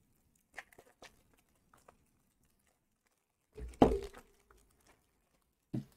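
Soft handling of a deck of trading cards: a few light clicks, then a thump about three and a half seconds in as the card stack is set down on a wooden tabletop.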